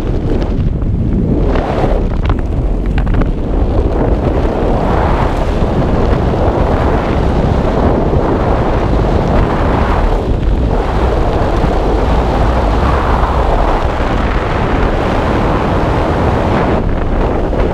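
Wind rushing over a helmet camera's microphone as a skydiver descends under an open ram-air parachute canopy, a loud steady rush that swells and eases in waves.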